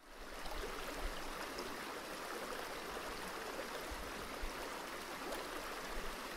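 Creek water running over rocks: a steady, even rushing that fades in over the first moment.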